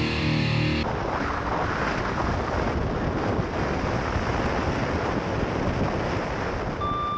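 Wind buffeting the microphone in a steady, loud rush, replacing heavy-metal music that stops about a second in. A brief steady beep sounds just before the sound cuts off.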